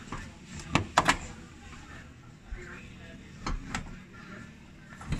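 Sharp knocks and clatters from the car's rear seat backrest being handled and pushed into place: a quick cluster about a second in and another pair about three and a half seconds in.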